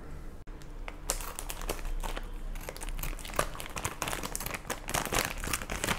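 Plastic instant-noodle packet crinkling as it is handled and cut open with scissors, a run of irregular crackles starting about a second in.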